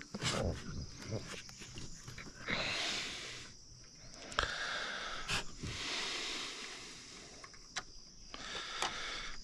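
A person breathing hard close to the microphone while hauling a fishing line by hand, with a few light clicks and knocks.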